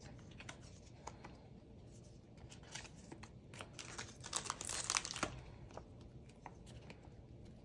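Plastic packaging crinkling and rustling as it is handled, with scattered light clicks and taps, busiest about four to five seconds in.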